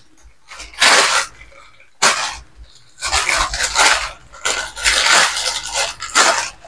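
Plastic bag and paper documents rustling and crinkling as they are handled and pulled out of the packing: a short burst about a second in, another about two seconds in, then nearly continuous crinkling from about three seconds on.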